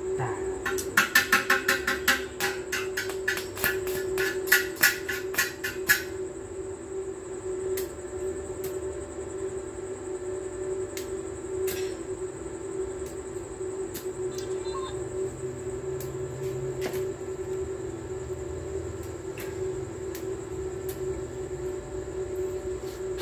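House gecko calling: a rapid run of short chirps, about four or five a second, for roughly five seconds, over a steady hum.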